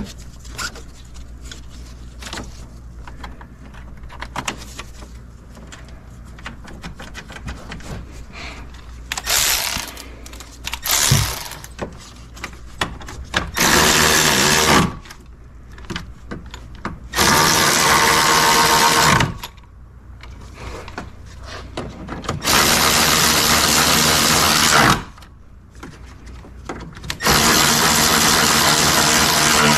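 A cordless power tool runs in four bursts of about two seconds each, driving home the fasteners of the radiator mount as it is reinstalled. Faint clicks and a couple of shorter bursts come before them.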